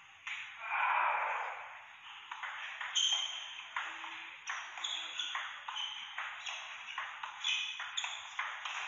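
Table tennis ball clicking off paddles and table in a rally, two to three sharp hits a second. A short rushing noise comes about a second in.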